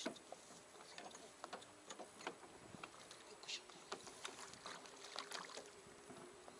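Faint, irregular small clicks and knocks in a small rowboat moored for fishing, with a faint steady hum coming in about four seconds in.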